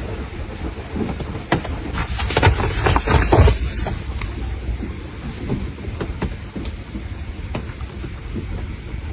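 Rain outdoors: scattered taps of dripping drops over a steady low rumble, with a louder rushing hiss from about two to four seconds in.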